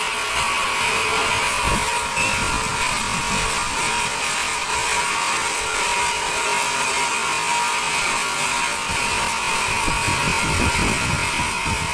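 Large band sawmill running steadily, a constant mechanical whine with a hiss above it.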